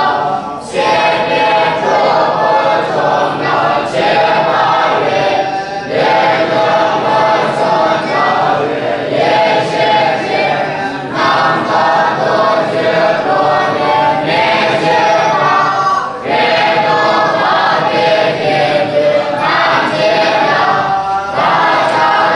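Young Tibetan Buddhist novice monks chanting a text together in unison, with brief breaks between phrases.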